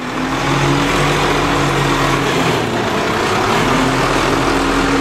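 Diesel engine of a Volvo WX Xpeditor rear-loader garbage truck running steadily, its note shifting about halfway through.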